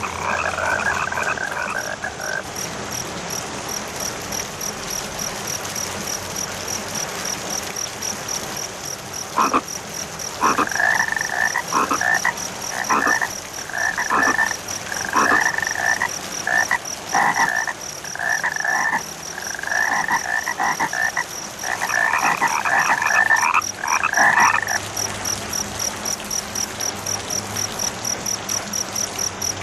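Frogs croaking in rapid runs of calls, with a cricket chirping in a steady high-pitched pulse over a constant hiss of rain. The croaking comes briefly at the start and again from about a third of the way in until about 25 s, with the cricket carrying on alone near the end.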